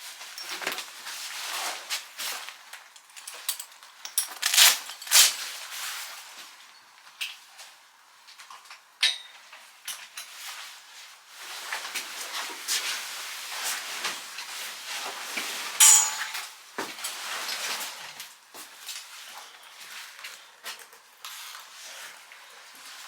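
Irregular metallic clinks and rattles of a horse rug's buckles and clips as the rug is unfastened and pulled off, with rustling fabric. Two brief ringing clinks stand out, about 9 seconds in and again near 16 seconds.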